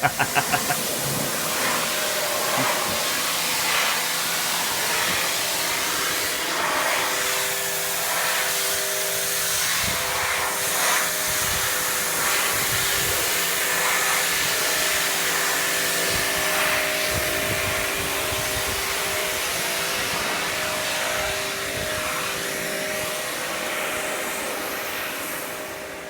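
Ryobi 2000 psi, 1.2 GPM electric pressure washer running and spraying: a steady motor-and-pump whine with several tones that come and go, under the hiss of the high-pressure water jet. It starts suddenly at the beginning.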